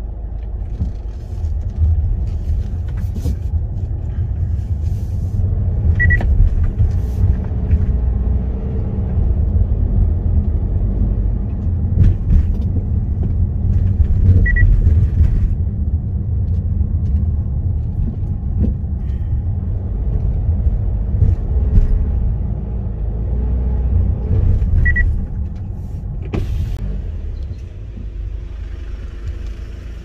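Car driving on a paved road, heard from inside the cabin: a steady low rumble of engine and tyres, with three short high beeps several seconds apart. The rumble quietens near the end as the car slows to a stop.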